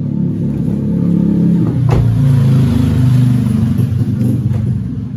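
A single clunk about two seconds in, typical of the Honda Brio's central door locks working in answer to the key remote, over a loud steady low hum.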